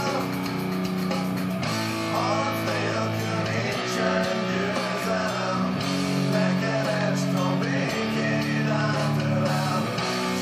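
Background rock music led by guitar.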